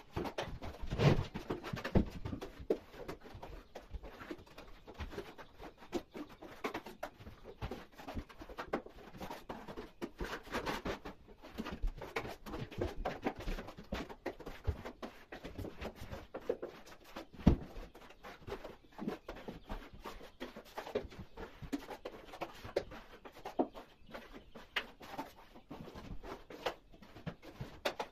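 Scattered scrapes and short knocks of hand plastering with trowels, spreading gypsum plaster on walls and window reveals.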